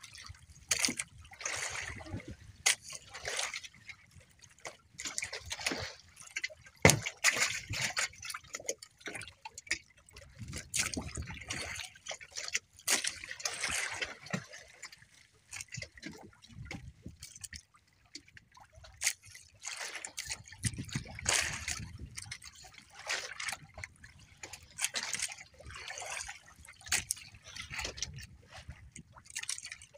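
Water sloshing and trickling against the side of a small wooden outrigger boat, with dripping from a wet nylon longline being hauled in by hand. Irregular sharp knocks come through it, the loudest about seven seconds in.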